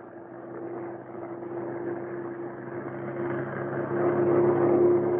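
Bell P-39 Airacobra's Allison V-12 engine droning steadily in flight with a constant hum, growing louder through the second half.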